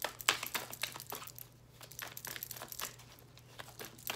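A deck of tarot cards being shuffled by hand, overhand: the cards flick and slap against each other in quick, irregular clicks.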